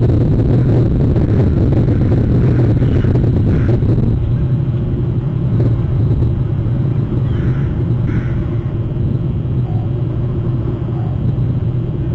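Steady low rumble of outdoor ambient noise on the nest-cam microphone, with a few faint crow caws about three, seven and eight seconds in.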